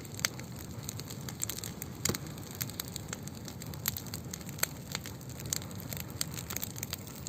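Campfire burning, crackling with sharp, irregular pops over a steady hiss; one of the louder pops comes about two seconds in.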